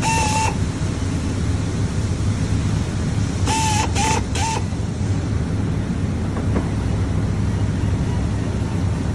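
Handheld power driver running screws into a wood bar stool's swivel seat plate: one half-second run at the start, then three quick bursts about three and a half seconds in, each with a whine that rises briefly as it spins up. A steady low hum runs underneath.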